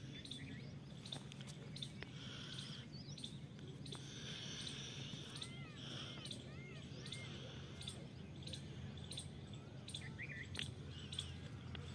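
Small birds chirping faintly, with short high chirps scattered throughout and a quick run of repeated rising-and-falling notes around the middle, over a steady low background hum.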